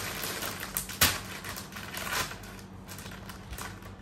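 Crinkly plastic snack packaging rustling and crackling as it is opened and handled, with a sharp crackle about a second in.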